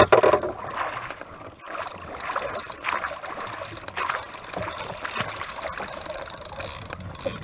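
Irregular water splashes beside a wooden rowboat as a hooked salmon thrashes at the surface, over steady river and hull water noise.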